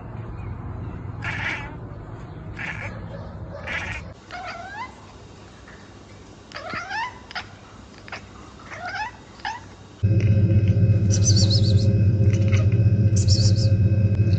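Domestic cats calling in a run of short clips: a few short harsh cries, then a string of short rising chirp-like meows. About ten seconds in, a louder steady low hum starts, with high warbling calls above it.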